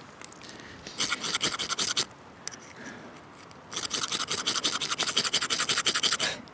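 A ferrocerium rod scraped hard with a striker in quick repeated strokes, throwing sparks onto water-soaked fire plugs: a short run of rasping scrapes, a pause, then a longer run of about three seconds.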